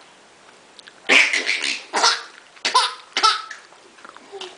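A baby laughing in four short breathy bursts, about one a second.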